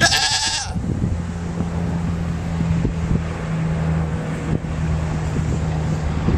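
A goat bleats once, short and high, right at the start. From about a second in, a steady low hum like a distant motor holds, with wind rumbling on the microphone.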